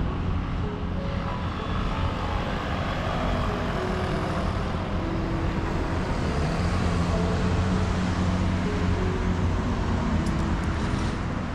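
Steady road traffic noise: a continuous rumble of passing cars and scooters on a multi-lane city road.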